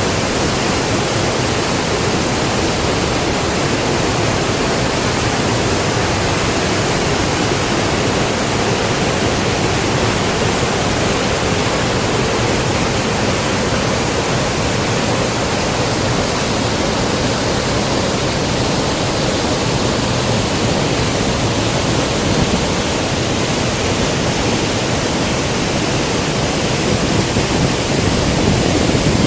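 Waterfall: a loud, steady rush of falling water, unbroken throughout and swelling slightly near the end.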